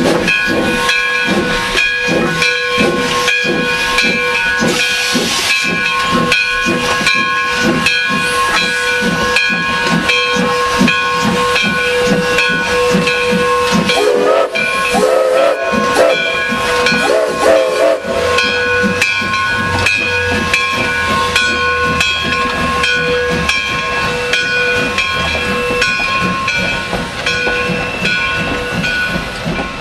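Hammond Lumber Company No. 17 steam tank locomotive under way: rhythmic exhaust chuffs over a steady steam hiss with a constant ringing tone. A wavering tone comes in about halfway through.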